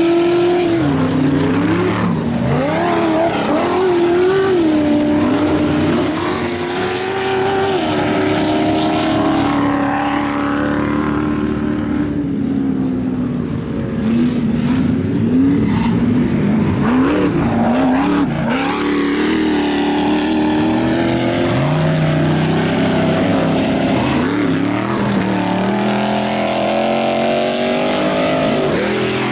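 Ultra4 off-road race buggy engines revving hard and backing off over and over as the buggies race over dirt jumps, the pitch rising and falling with the throttle. Near the end a buggy's engine climbs in pitch as it comes closer.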